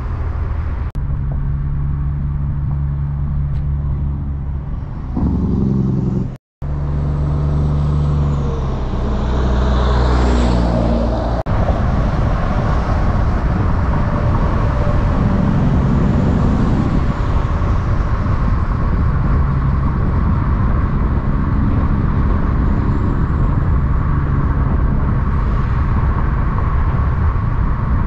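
Semi-truck diesel engines running through loud pipes, in cut-together clips, with a brief dropout about six seconds in and an engine note shifting in pitch around ten seconds in.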